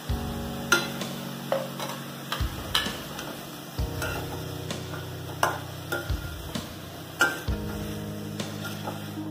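Metal spatula stirring diced pumpkin in a steel kadai, knocking and scraping against the pan about once a second, over a low sizzle of frying.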